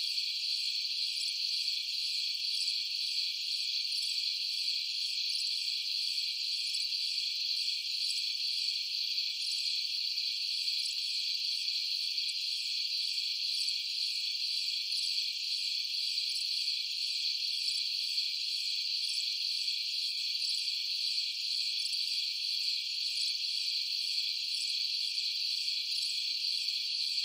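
Steady, high-pitched chorus of insects, with an even pulsing in its highest notes.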